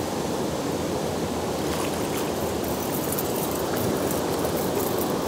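River water rushing steadily over a shallow, rippled stretch of current, with a few faint light ticks from about two seconds in.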